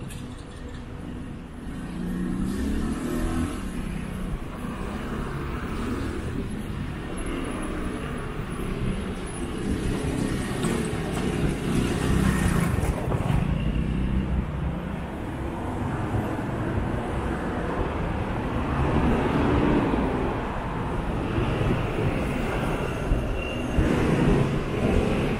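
City road traffic: a steady low rumble of cars and buses passing, swelling and easing as vehicles go by.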